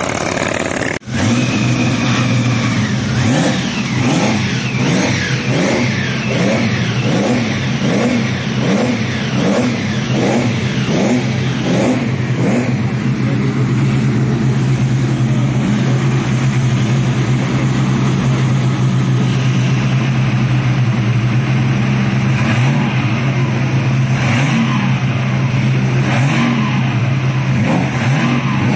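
Car engines running and revving, over a steady low hum. The sound breaks off for an instant about a second in, and for the first half a pulsing beat comes a little under twice a second.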